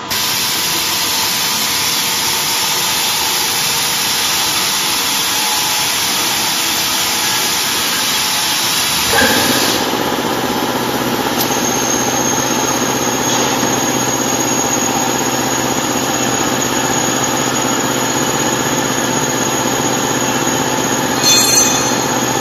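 Industrial frame mixer's electric drive running with a steady mechanical noise. About nine seconds in, a lower hum joins, and a thin high whine sets in a couple of seconds later.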